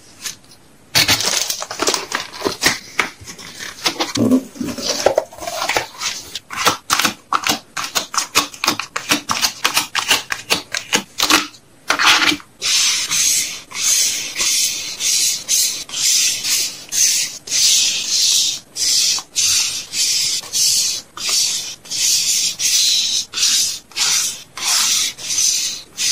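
Hands packing small items: plastic and paper crinkling and rustling, with light handling clicks. About halfway in it turns into a steady run of short, hissing rubbing strokes, roughly one a second.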